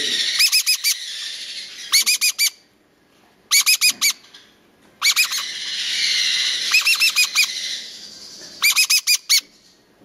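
Meyer's parrot chick, 13 days old, giving short, sharp chirping calls in clusters of three or four, five clusters with pauses between, typical of a hand-fed chick's food-begging calls. A breathy hiss rises and falls under the calls.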